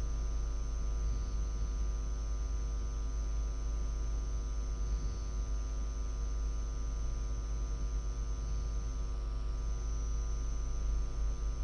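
Steady low electrical hum with a buzz of higher overtones and a faint hiss: mains hum in the recording.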